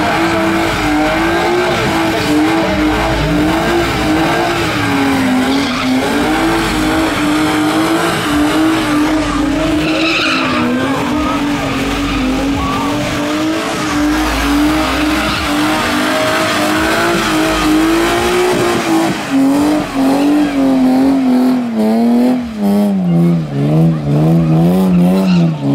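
A car doing a burnout: the engine is held at high revs with the tyres spinning and screeching, its pitch wavering up and down. Near the end the revs drop and are blipped several times in quick succession.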